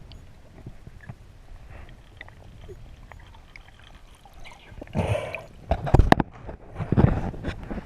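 Water sloshing and splashing around a rowboat, with a few sharp wooden knocks and louder splashes in the last three seconds.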